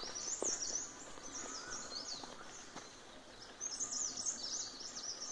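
Songbirds singing: quick runs of high, rising chirps in two bouts, the first at the start and the second from about three and a half seconds on, over a faint outdoor hiss.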